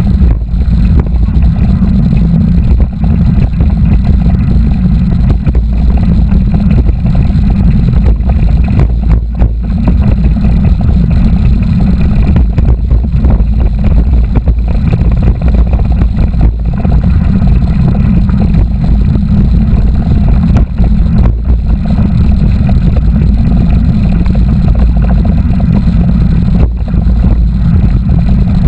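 Loud, steady wind rumble and riding noise on the microphone of a camera carried on a moving mountain bike, with a few short knocks from bumps along the way.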